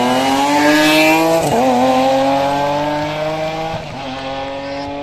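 BMW E36 rally car's engine revving hard under acceleration, climbing steadily in pitch. It shifts up about a second and a half in and again about four seconds in.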